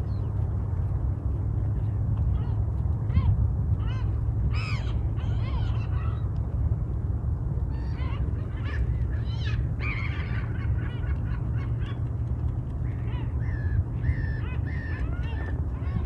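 A flock of migratory waterbirds calling: many short arched calls that come in clusters, busiest in the middle and near the end. A steady low rumble runs underneath.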